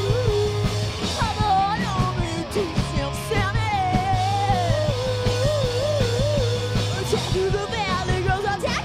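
Live rock band playing, with electric bass, drums and keyboard. A steady low bass line runs under a wavering melodic line.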